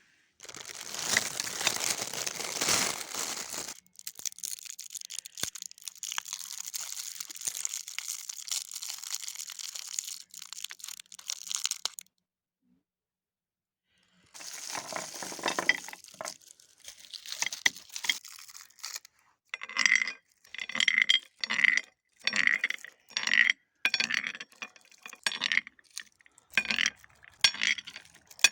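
Colourful candies and their wrappers rustling and clinking as they are handled. After a short break, a regular series of short crunching strokes, a little more than one a second, as the candy is ground in a meat grinder.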